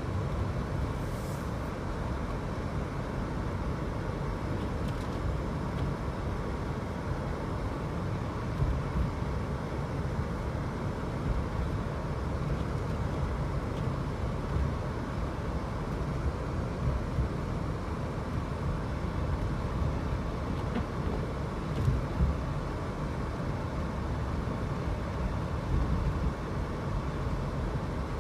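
Car driving along a snowy road: a steady low rumble of engine and tyre noise, with a few brief bumps along the way.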